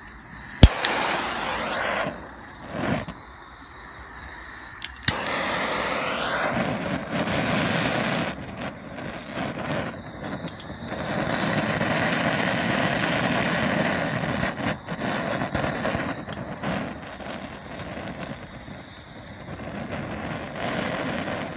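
Propane torch flame hissing steadily as it heats the bearing journal of an aluminium two-stroke engine crankcase half. A sharp knock comes about half a second in and another about five seconds in.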